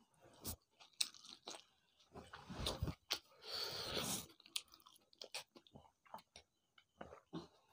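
Mouth sounds of people eating rice and chicken curry by hand: faint chewing with scattered wet clicks, and a longer slurp from a steel bowl about halfway through.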